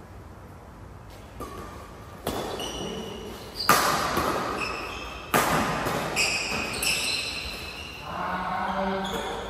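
Badminton rackets smacking a shuttlecock back and forth in a rally: several sharp cracks, the loudest about four and five and a half seconds in, each echoing in the large hall. Short high squeaks from court shoes on the floor come in between the hits.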